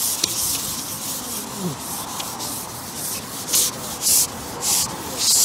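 Carbon fishing pole (a Preston Innovations Response XS90) being shipped back hand over hand, the pole sliding through the hands with a series of short hissing rubs that grow louder in the second half.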